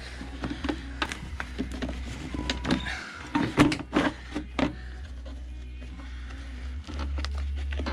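Irregular clicks, knocks and scrapes of hands and objects being handled under a car body, loudest about halfway through, over a steady low hum.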